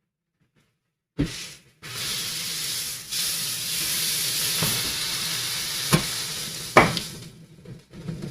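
Pork tenderloin searing in very hot oil in a pan, a loud steady sizzle that cuts in about a second in and fades near the end, with a few sharp knocks of a utensil against the pan.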